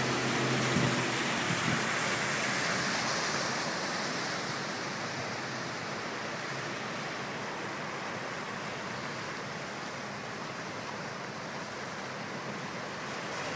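Floodwater running across a road, a steady rushing noise that slowly grows quieter. A car driving through the water fades out in the first second or so.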